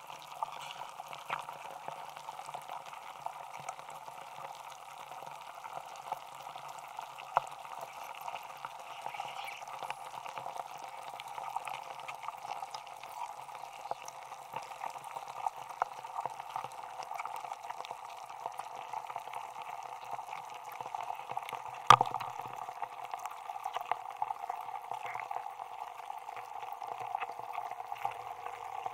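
Block of ice melting in water, heard through contact microphones frozen inside it: a dense, steady fizz of tiny crackles and pops. A louder single crack comes about a quarter of the way in, and a sharp, much louder crack about three-quarters through.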